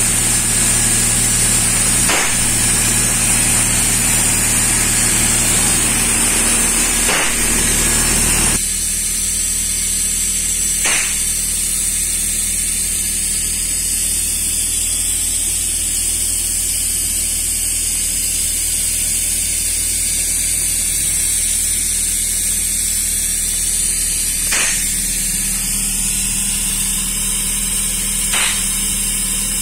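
Paint-spraying equipment running: a steady high hiss over a constant mechanical hum, with a few faint clicks. The low hum drops away abruptly about eight seconds in while the hiss carries on.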